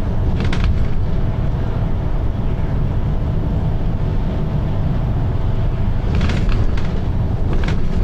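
Volvo B9TL double-decker bus's six-cylinder diesel running under way, a steady low rumble heard from inside the bus. Brief clusters of clicking rattles come about half a second in and again around six and seven and a half seconds.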